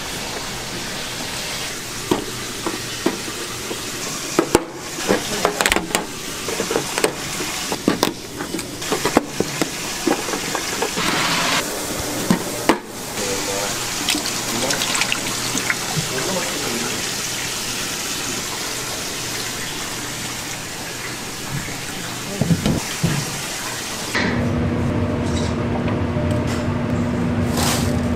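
Kitchen food-prep sounds: running water with many clinks and knocks of utensils and containers. About 24 seconds in, the sound changes suddenly to a steady machine hum.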